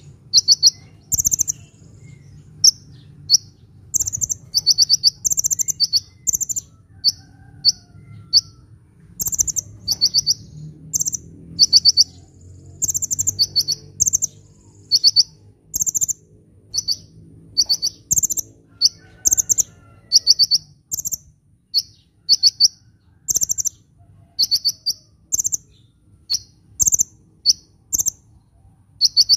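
Sunbird (Indonesian 'kolibri') singing: a fast run of short, high-pitched chattering trills, one every half second or so, over a faint low hum.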